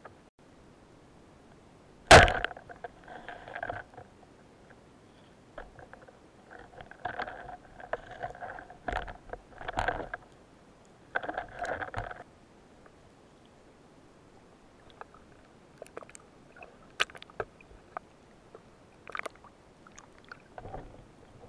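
Underwater noise of a spearfishing dive picked up by a speargun-mounted camera. A single sharp crack comes about two seconds in. After it come several stretches of bubbling and gurgling, then a few scattered sharp clicks near the end.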